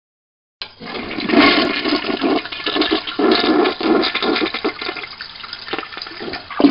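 Water rinsing: a rush of running, sloshing water that starts abruptly after silence, swells and surges unevenly, and surges again near the end.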